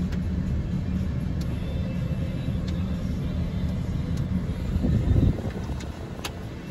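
Jeep Wrangler Rubicon's 4.0-litre inline-six idling steadily, heard from inside the cabin, with a few faint clicks.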